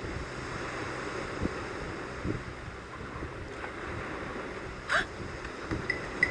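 Steady seaside ambience of wind and waves. About five seconds in there is one short, sharp sound, the loudest moment.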